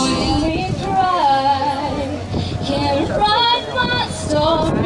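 A high voice singing a melody that slides and wavers in pitch, coming over a concert sound system.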